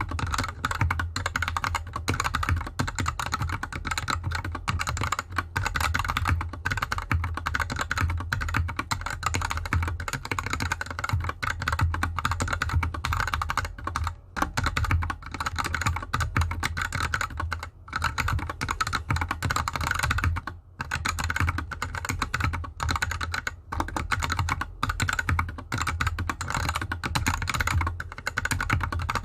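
Mechanical keyboard typing on a GK64X with unlubricated Gateron Yellow linear switches and DSA keycaps, set with no mat underneath. Keys are struck in a dense, continuous run of clicks, broken by a few short pauses.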